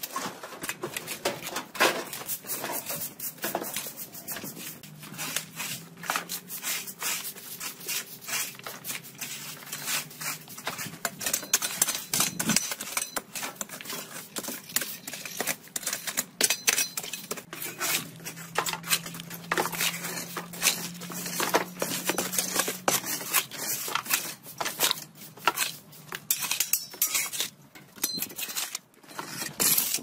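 Metal shovel blades scraping and clinking against bricks and rubble, with loose bricks and debris clattering, in quick irregular strokes.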